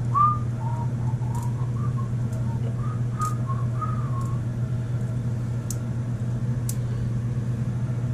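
A few soft, short whistled notes in the first half, over a steady low hum, with a few light clicks as a strand of plastic beads is swung and flipped.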